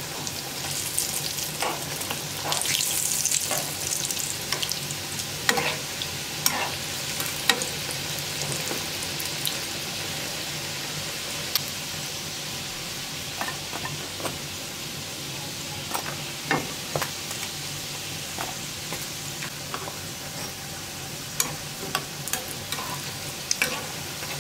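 Rounds of pişi dough deep-frying in hot oil in a frying pan, sizzling steadily, with the sizzle swelling briefly a few seconds in. Metal tongs click against the pan and the pieces now and then as they are turned and lifted out.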